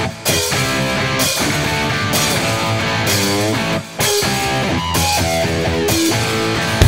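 Rock music with guitar and drums, with two brief breaks.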